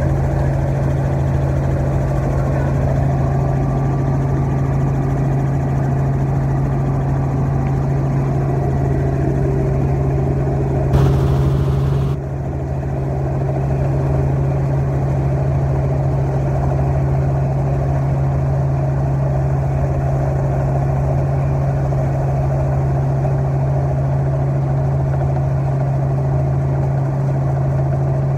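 Helicopter cabin noise in flight: the engine and rotors droning steadily under a strong low hum. About eleven seconds in, a short hiss comes over it and stops suddenly.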